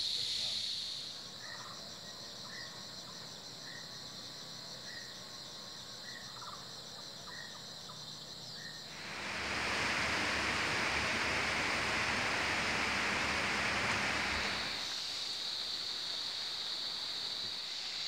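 Rainforest insects droning in a steady high-pitched band, joined for the first half by a fast pulsing trill and a short call repeated about every half second. About nine seconds in, a louder even rushing noise covers everything for about six seconds, then the steady insect drone returns.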